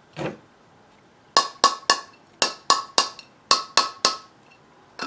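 Handle of a heavy metal knife striking the edge of a glass jar's metal screw lid, the old trick for breaking loose a stuck lid. About ten sharp knocks with a short metallic ring come in three quick runs of three or four.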